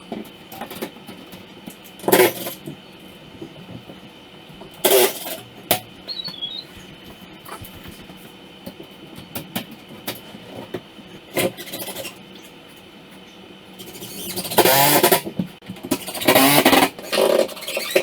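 A handheld power drill or driver running in short bursts, several times, between light knocks and clicks of handling.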